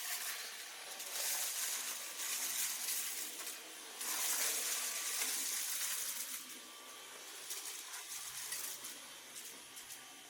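Roborock H60 Ultra cordless stick vacuum running, its airflow rushing with many small clicks and rattles of debris being sucked up. It is louder for about the first six seconds, then quieter.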